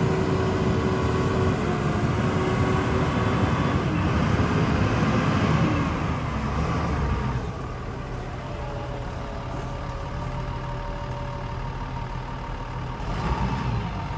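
Perkins diesel engine of a Hyster H12.00XM 12-tonne forklift running as the truck drives; the engine note falls and the sound drops to a quieter steady run about seven seconds in.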